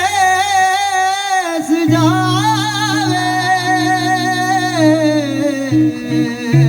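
A male voice sings a wordless, heavily ornamented line of long wavering held notes that slides downward near the end. From about two seconds in, steady low instrumental notes hold underneath.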